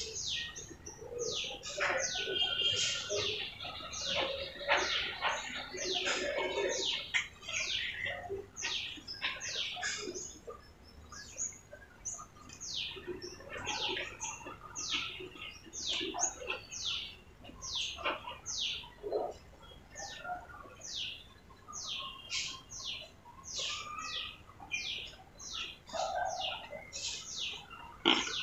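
Small birds chirping in short, high, quick notes, repeated about twice a second throughout.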